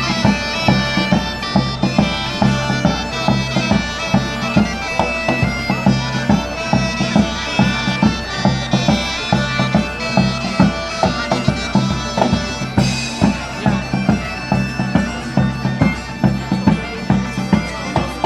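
Folk band playing: bagpipes carry a tune over a steady drone, with a drum keeping an even beat of about two to three strokes a second. A bright crash comes about thirteen seconds in.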